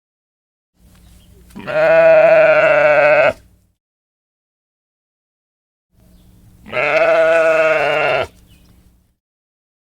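A sheep bleating twice, each a single long wavering bleat of about one and a half to two seconds, a few seconds apart. A faint low hum comes just before and after each bleat.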